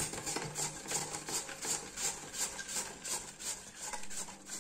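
Red cabbage being shredded on a V-blade mandoline slicer: even, repeated scraping strokes as the cabbage is pushed over the blades, about three a second.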